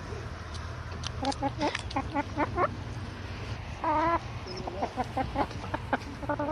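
Chicken clucking: runs of short clucks, with one longer drawn-out call about four seconds in.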